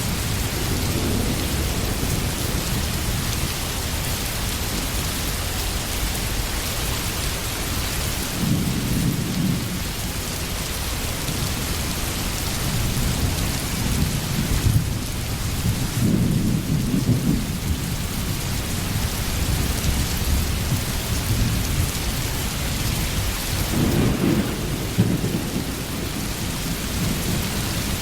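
Steady heavy rain hissing, with low rolls of thunder swelling and fading several times.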